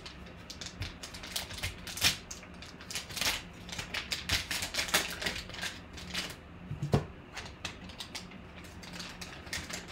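Foil trading-card pack crinkling and tearing as it is ripped open by hand: a run of irregular crackles. One sharper knock comes about seven seconds in.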